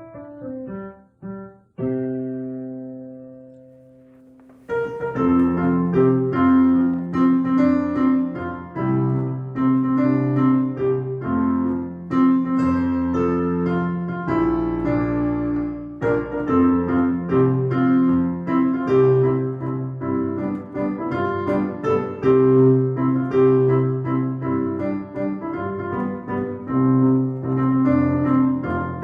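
Instrumental piano music. A few short detached notes and a held chord that fades away, then a fuller piano piece starts about five seconds in and carries on.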